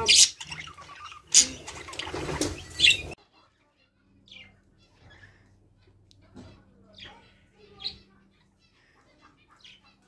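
Caged pet birds, a budgerigar and a cockatiel, chirping and squawking loudly in sharp, high calls. About three seconds in, the sound drops abruptly to a quiet background with a few faint, scattered chirps.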